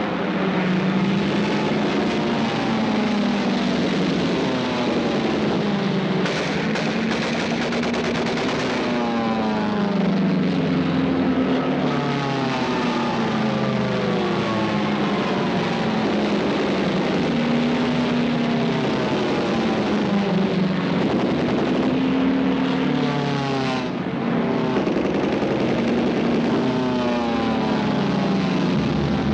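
Piston-engined propeller aircraft in an air battle, heard on an old 1940s film soundtrack. The engines' pitch falls again and again as planes dive and pass, over a steady rumble.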